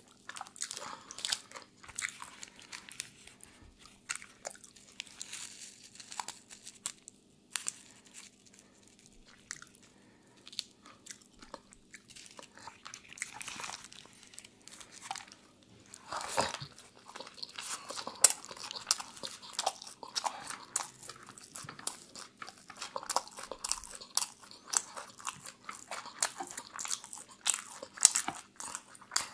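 Close-miked eating: biting and chewing grilled chicken and shawarma, with many sharp crunches and clicks and a quieter stretch about ten seconds in.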